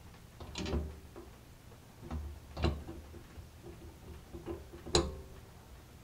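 Metal clicks and clunks from a dial safe's handle and its attached lever being released and pulled back against the lock while the combination dial is turned. There are three distinct knocks, about half a second, two and a half seconds and five seconds in, the last the loudest.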